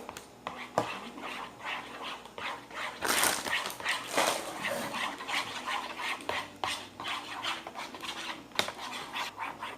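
Spoon stirring a sticky mix of glue, cream, yellow colouring and glitter in a bowl while making slime: irregular stirring strokes, louder from about three seconds in.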